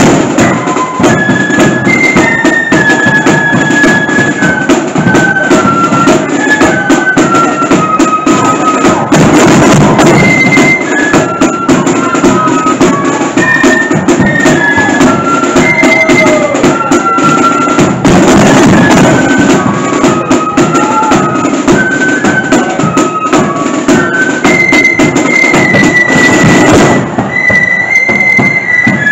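Marching flute band playing a tune: flutes carrying a stepping melody over snare and bass drums.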